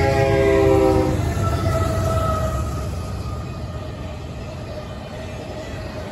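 Freight locomotive's air horn sounding a chord and cutting off about a second in, followed by the steady rumble and rattle of a CSX autorack freight train rolling past.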